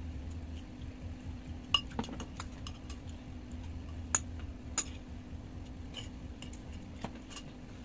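Metal cutlery clinking and scraping against ceramic bowls and glass, as a scattered handful of sharp clicks over a steady low hum.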